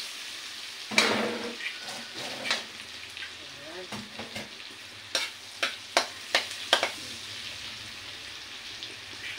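Chopped garlic sizzling steadily in melted butter in a wok, with a utensil stirring, scraping and clicking against the pan: one sharp click about a second in and a quick run of clicks about five to seven seconds in.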